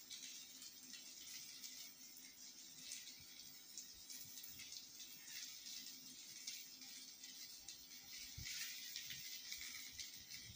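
Patra rolls frying in a nonstick pan: a faint sizzle that swells and fades, with soft scrapes and light knocks as a silicone spatula turns the rolls.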